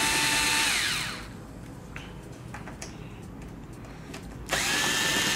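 Panasonic cordless screwdriver with a Phillips bit running to back out screws, its motor whine winding down about a second in; a second run starts near the end.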